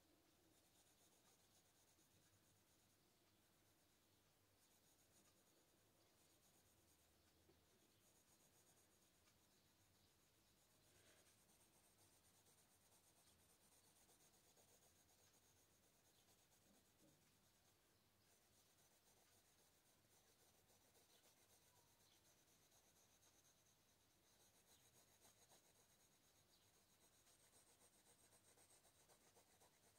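Very faint, steady scratching of a thick yellow colouring pencil shading across paper.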